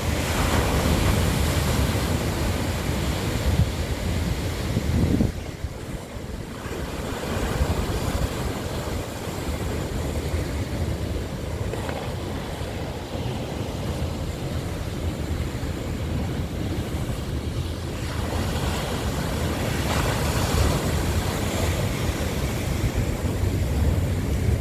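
Rough sea: waves breaking and surf washing in against shoreline boulders, with wind buffeting the microphone. The surge drops for a moment about five seconds in, then builds again.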